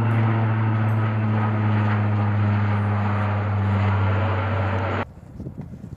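Aircraft engines droning steadily, with a strong low hum; the sound cuts off suddenly about five seconds in.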